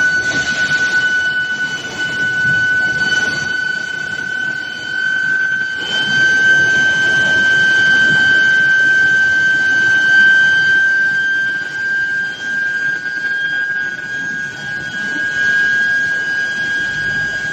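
Square steel induction reheating machine running, its coil giving off a steady high-pitched whine that drifts slowly upward in pitch, over a continuous rumble of machinery.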